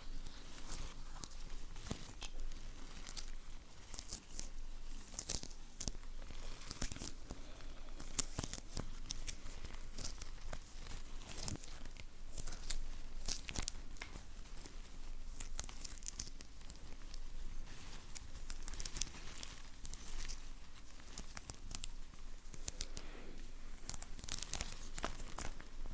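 Sticky material being peeled and pulled apart in a continuous run of short, crackly tearing rips.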